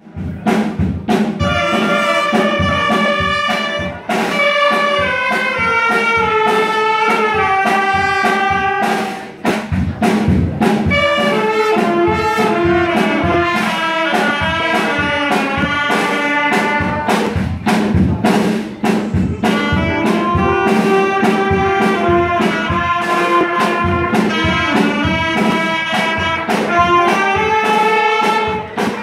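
A school band playing live: a section of saxophones and trumpets plays the melody together over a steady drum-kit beat, backed by electric guitars. The music breaks off briefly a few times between phrases.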